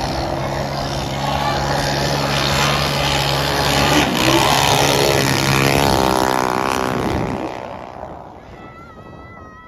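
The 7 hp engine of a motorized surfboard running at speed: a steady engine note that rises in pitch about five to seven seconds in, then fades away. A brief high, wavering call is heard faintly near the end.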